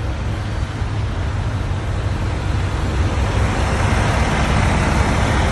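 Loud steady rumble with a hiss over it beside a smoking semi truck, growing a little louder about three seconds in.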